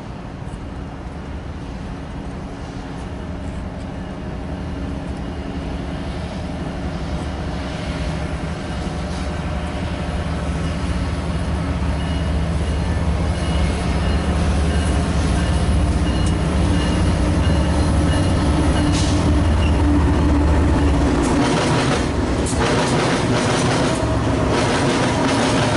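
Diesel locomotives hauling a double-stack container freight train approach and pass, their engine drone growing steadily louder. In the last few seconds the wheels click over rail joints.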